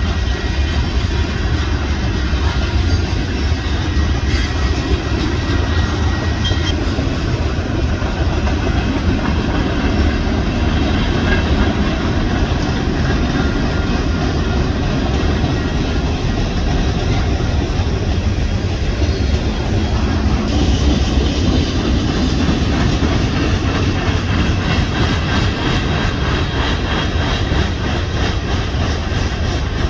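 A freight train's cars rolling steadily past close by: the continuous noise of steel wheels on the rails as tank cars, covered hoppers and boxcars go by.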